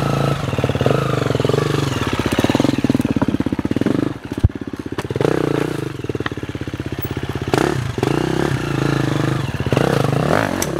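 KTM enduro dirt bike engine running, with throttle blips and short rising revs as the bike is ridden up a small rock ledge. There is one sharp knock about four seconds in.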